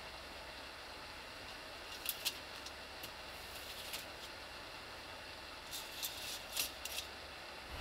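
Bunk curtains being drawn shut, their hooks clicking and scraping along an overhead rail in two short spells, over a steady low hum of the ship in the cabin.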